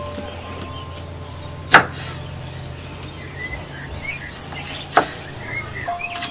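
A kitchen knife slicing small green bilimbi fruits on a wooden cutting board: a few sharp knocks as the blade strikes the board, two of them loud. Soft background music with held notes and a few bird chirps run underneath.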